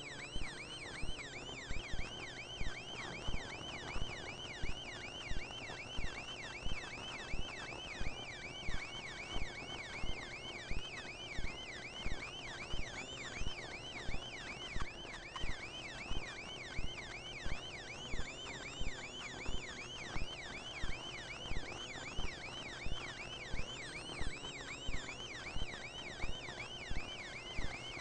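Police car siren in fast yelp mode, a rapid, even run of rising-and-falling wails, heard from inside a pursuing cruiser, with a second siren gliding more slowly up and down beneath it. Sharp clicks at a regular beat, about three every two seconds, run alongside.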